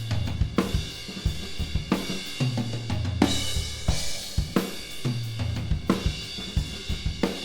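Recorded drum kit playing a steady groove of kick, snare, hi-hat and cymbals, with low drums ringing and falling in pitch about every two seconds. It is heard through a left-right pair of Royer R-122 ribbon overhead mics blended with a mono room mic and a Blumlein room pair.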